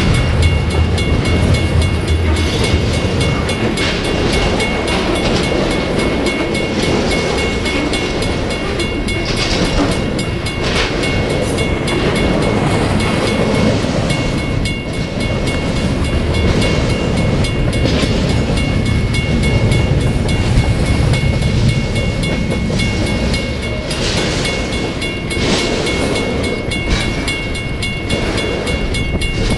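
Double-stack intermodal freight cars rolling past at close range: a continuous rumble of steel wheels on the rails with clickety-clack over the rail joints. A thin steady high tone runs through it.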